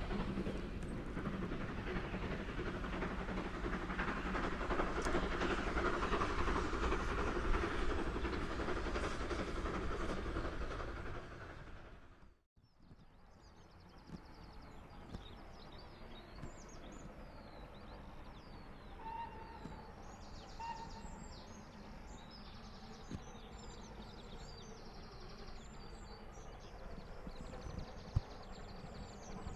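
A steam locomotive hauling a train, a dense continuous rumble of its working that fades away about twelve seconds in. After a sudden break, small birds chirp and sing against quiet countryside for the rest of the time.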